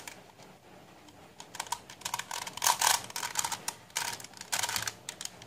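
Plastic face-turning octahedron puzzle being twisted by hand: clusters of quick clicks as its layers turn, starting about a second and a half in.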